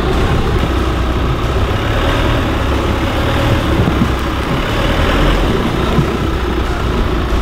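Chevrolet Colorado ZR2 pickup's engine running steadily at low speed as the truck creeps its front wheel up onto a stack of old tires, compressing the suspension in a flex test.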